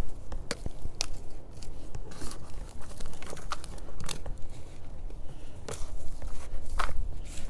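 Hands digging and scraping through potting soil in a container, with irregular crunches, rustles and sharp clicks.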